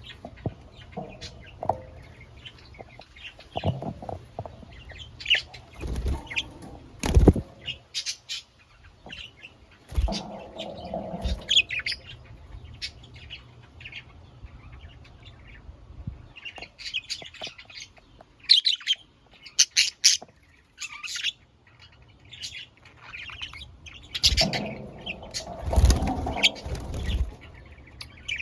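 Pet budgerigars chirping and chattering in many short, high calls, with a few louder bouts of wing flapping and rustling.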